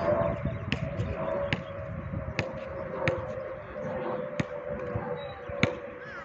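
Jet airliner passing high overhead: its engines give a steady distant drone with a tone that slowly falls. About eight sharp knocks at uneven intervals stand out above it.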